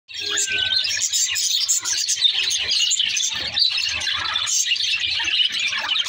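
A flock of budgerigars chattering and warbling: a dense, continuous stream of high chirps from many birds at once.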